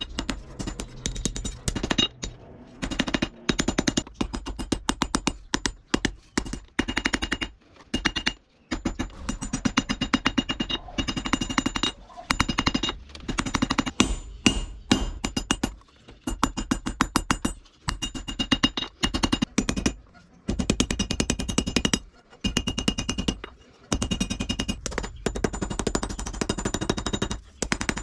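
Rapid, repeated mechanical hammer blows on steel in bursts of a second or two with short pauses between, the metal ringing under each run of strikes, as the bearing-ring steel is forged.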